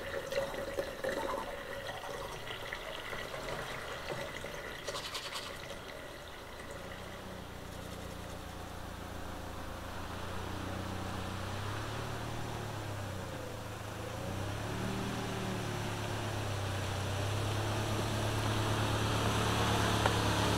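Toothbrush scrubbing at a metal sink for the first few seconds. Then a Toyota HiAce campervan's engine runs as the van drives up, getting gradually louder as it comes closer.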